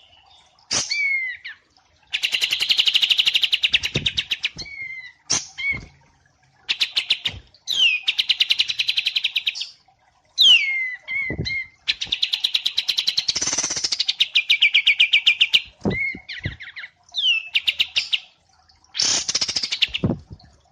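Songbirds singing, the wambi mini and kapas tembak of a cage-bird song-training recording: long, very fast rattling trills of a few seconds each, broken by short whistles that slide downward.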